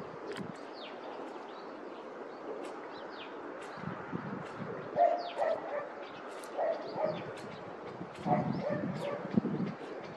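A dog barking in short bursts from about halfway through, with small birds chirping throughout over a steady background hiss.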